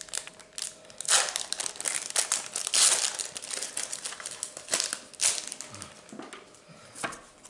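Pokémon TCG booster pack's foil wrapper being torn open and crinkled in the hands, in irregular crackling bursts.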